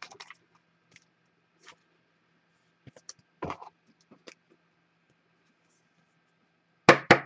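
Trading cards and plastic card holders being handled on a table: scattered light clicks and scratches, a soft knock about three and a half seconds in, and a louder cluster of short sounds near the end.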